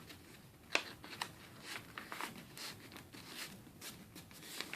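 Heavyweight construction paper being handled and folded: scattered crinkles and rustles, with a sharper crackle about three-quarters of a second in.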